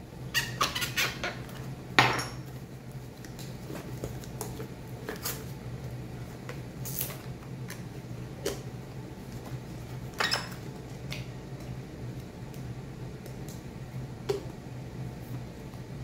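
Jars and kitchenware being handled and set down on a counter: scattered clinks and knocks, with one louder knock about two seconds in, over a steady low hum.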